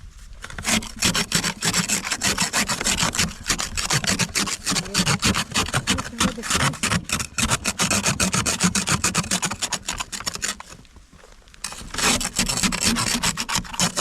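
Ice scraper scraping frozen ice off a car's glass in rapid, repeated rasping strokes. The strokes stop for about a second near the end, then start again.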